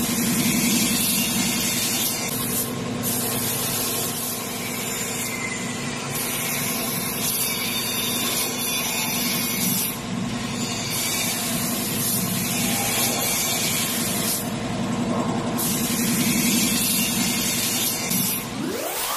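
Gravity-feed paint spray gun hissing in passes of three to four seconds, stopping briefly between passes, over the steady hum of the running air compressor. Near the end a quick rising whoosh sweeps up.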